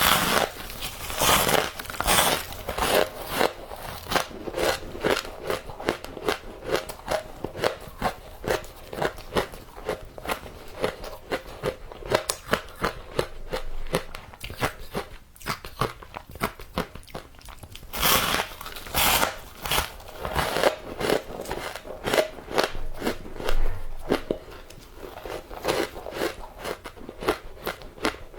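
Close-miked crunching of frozen matcha powdered ice being bitten and chewed: a fast, continuous run of sharp crackly crunches, with louder bites about two seconds in and again around eighteen to twenty seconds in.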